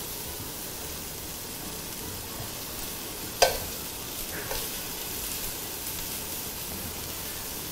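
Mushrooms sizzling as they sear in a hot wok, a steady hiss. Metal tongs click against the pan about three and a half seconds in and again about a second later.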